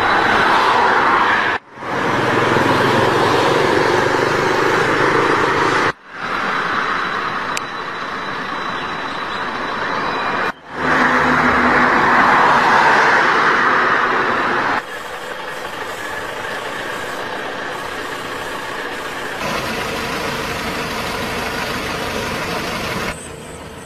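Road traffic going by, cars and trucks passing in several rising and falling swells, broken by abrupt cuts where separate recordings are joined.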